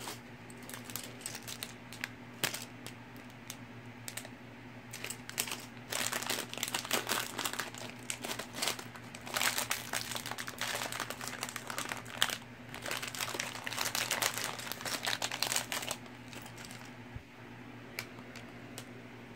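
A clear plastic bag of small plastic building bricks crinkling while pieces are rummaged through and clatter against each other. Scattered clicks at first, busiest in the middle, then dying down near the end.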